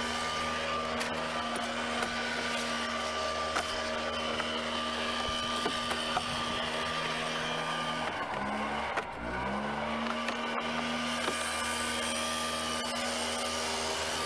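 A motor running at a steady pitch. About eight and a half seconds in it slows sharply, then speeds back up to its steady pitch within about a second and a half.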